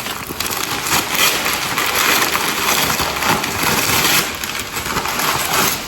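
Rustling and crinkling of packing material, with small clicks and knocks, as kitchenware is unpacked.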